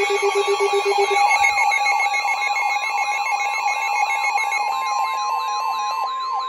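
Emergency Alert System attention tones announcing a new flood warning: steady alert tones layered with a fast, repeating warbling sweep, about four sweeps a second. A low pulsing beep stops about a second in.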